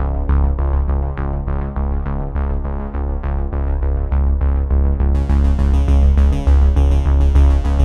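Background music: a synthesizer or keyboard playing quick repeated notes over a steady low bass, growing brighter about five seconds in.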